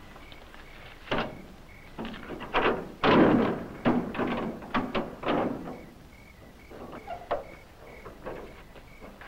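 Rear door and metal latch bar of a truck's cargo trailer being worked open: a run of clanks and thuds, the heaviest about three seconds in, then a few fainter knocks near the end.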